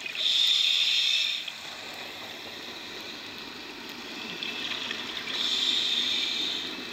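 Scuba diver breathing through a regulator underwater: two loud hissing breaths about five seconds apart, with quieter bubbling between.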